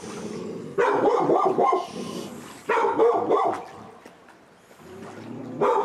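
A dog barking in two bouts, the first about a second in and the second near the middle.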